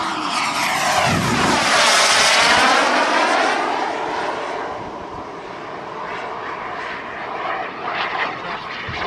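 Model turbine jet engine of a radio-controlled BAE T-45 Goshawk in flight: a steady rush with a falling pitch early on. It swells to its loudest about two to three seconds in during a low pass, then eases off.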